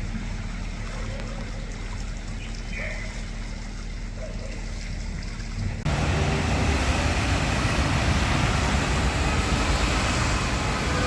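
Traffic on a waterlogged road: vehicles running with rushing water. About six seconds in the sound cuts abruptly to a louder, steady rush.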